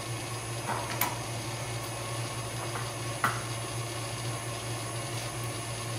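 A hen's egg being cracked against the edge of a bowl: a sharp tap about a second in and a louder tap a little after three seconds. A steady low hum runs underneath.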